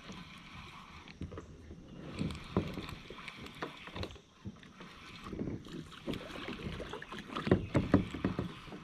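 Spinning rod and reel being reeled in from a kayak: irregular clicks and knocks from the reel and the hull, loudest in a few sharp knocks near the end.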